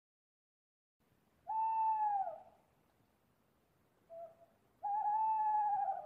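An owl hooting: a hoot that falls away at its end, a brief short note, then a longer, slightly wavering hoot.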